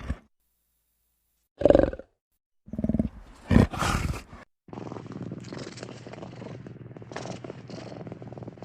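Big cat calling: two short, loud roars in the first half, then from about five seconds in a steady, finely pulsed low rumble.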